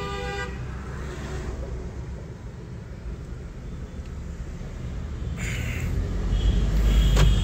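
Low engine and road rumble heard inside a car cabin, growing louder over the last two seconds. A short pitched whine sounds at the very start.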